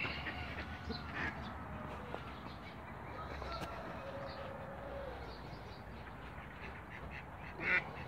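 Domestic ducks calling, scattered short quacks in a farmyard flock, with one louder call near the end.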